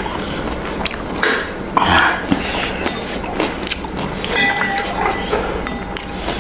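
Metal spoon and ladle clinking and scraping against glass bowls and a plate in short, scattered taps.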